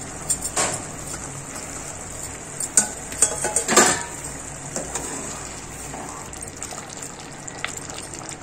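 Metal ladle clinking and scraping against a metal kadai, a single knock under a second in and a cluster of clinks around three to four seconds in, over the steady bubbling of a simmering curry gravy.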